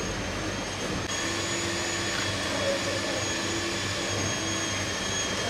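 Steady whirring of kitchen ventilation fans, with a thin high whine on top.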